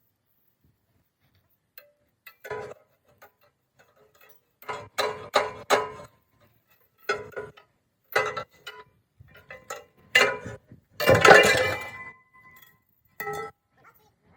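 Irregular metal-on-metal knocks and clinks, about ten in all, each with a short metallic ring; the loudest, about eleven seconds in, rings for nearly a second.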